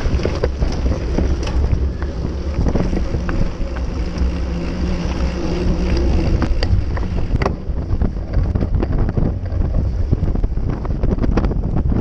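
Wind buffeting the microphone of a camera on a mountain bike riding a dirt track, with rattling and knocks from the bike and tyres over the rough ground.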